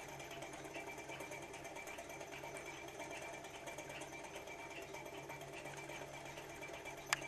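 L-9 thermoacoustic toy engine running steadily, its piston and flywheel making a fast, even mechanical rattle. A sharp click sounds near the end.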